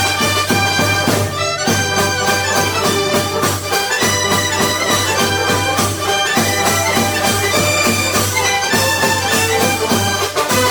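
Upbeat background music: a steady bass and beat under a quick, bright melody, with a reedy, accordion-like lead.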